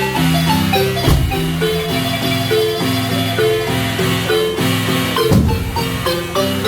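Marimba music: a melody of struck wooden bars over held lower notes played as fast rolls, with two deeper, heavier strokes about a second in and near the five-second mark.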